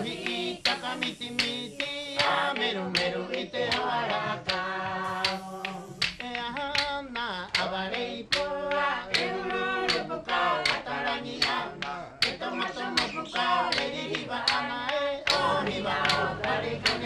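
Music: several voices singing together, with sharp percussive claps keeping the beat about two or three times a second.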